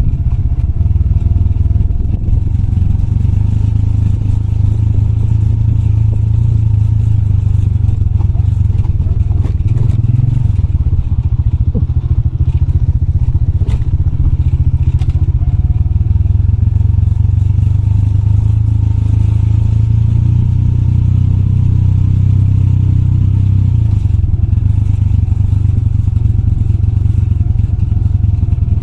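Motorbike engine running steadily at low speed on a rough dirt trail, with a few knocks and rattles from the bike over the ground about ten to fourteen seconds in.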